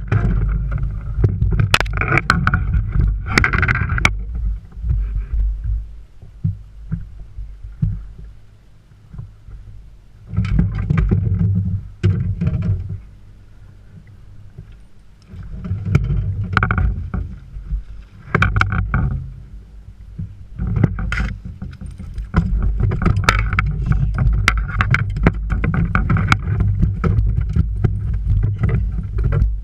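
Low rumbling buffeting on the microphone that surges and drops away several times, with scattered clicks and splashy noises on top.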